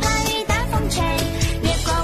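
Background music with a steady beat and a gliding melody.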